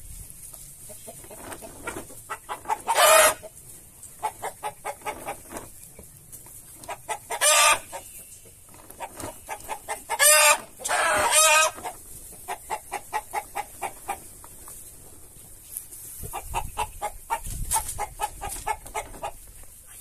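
Domestic chickens clucking in quick runs of short clucks, about three to four a second, broken by four loud calls of under a second each.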